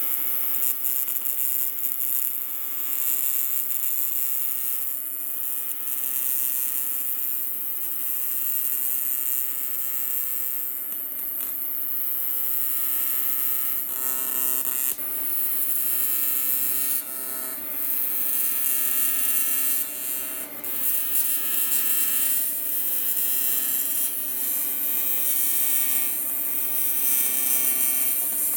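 AC TIG welding arc on aluminum buzzing steadily, with a strong hiss over the buzz. The arc is fed by an Everlast PowerTIG 325EXT welder. The sound dips briefly a couple of times.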